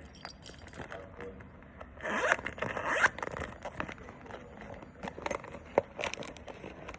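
Blind-box packaging being torn open by hand: a rasping rip lasting about a second, starting about two seconds in, followed by scattered crinkles and clicks as the package is handled.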